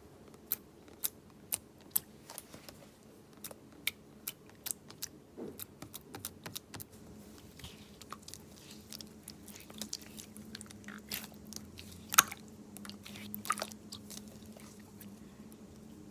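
Mixed slime being worked by hand, giving irregular sharp clicks and crackles, sparse at first and denser in the second half, with one loud pop about three-quarters of the way in.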